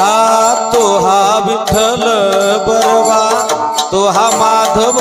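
A man singing a devotional Varkari abhang in a high, drawn-out line that glides between notes without words, over a steady drone and drum strokes.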